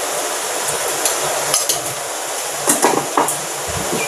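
Spoon and utensils clinking and knocking against a metal kadai and steel containers while sugar is added to the masala, several clinks with a cluster near the end, over a steady hiss.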